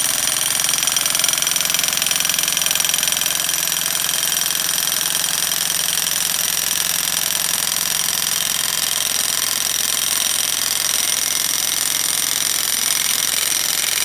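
Electric jackhammer driving a 50-inch steel Diamond Pier rod into frozen ground, running without a break with a high steady whine in it.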